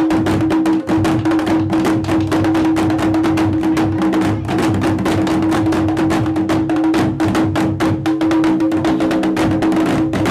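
Music with fast, dense drumming over a steady held note.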